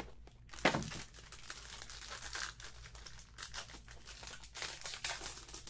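Foil wrapper of a trading-card pack being torn open and crinkled by hand, with one short knock under a second in.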